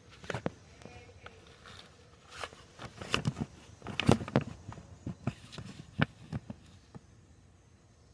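Irregular clicks and light knocks from hands handling parts and the camera over an engine, thickest around three to four seconds in and stopping about seven seconds in.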